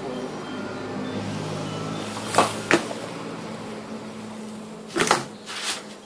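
Sharp clinks and knocks of hand tools on a bicycle crankset, two about a third of a second apart, then a quick cluster of two or three near the end, over a low steady hum.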